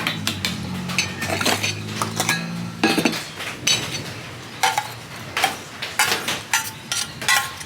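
A metal utensil repeatedly clinking and scraping against dishes, a dozen or so sharp strikes at irregular intervals, typical of spooning out cat food. A low hum underneath stops about three seconds in.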